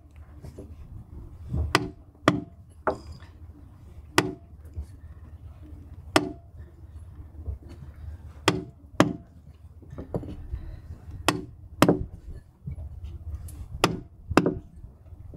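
Caulking iron being struck with a hammer, about a dozen sharp taps at uneven intervals, some in quick pairs, driving loops of oakum into a wooden deck seam.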